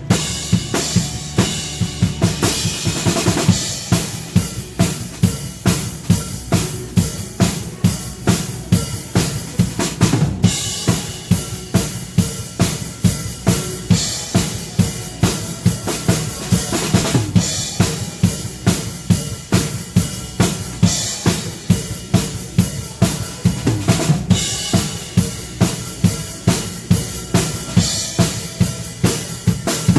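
Drum kit played to a steady beat in a worship song, the kick and snare marking about two strong hits a second under cymbals, with crash accents about ten seconds in and again near the end.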